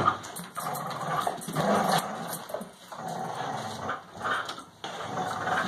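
Two dogs growling in play while they tug a plush toy between them: a string of about six growls, each half a second to a second long.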